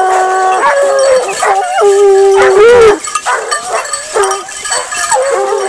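A pack of scent hounds, Gascon hounds among them, baying in chorus as they work a scent trail. Several dogs give long, drawn-out bays that overlap.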